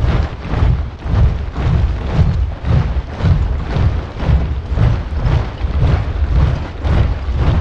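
A large body of soldiers marching in step, boots stamping on the ground in a steady heavy beat of about two steps a second.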